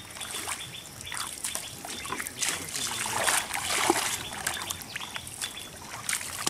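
Bare feet wading through shallow water, an irregular run of sloshing, splashing steps that is loudest about midway through.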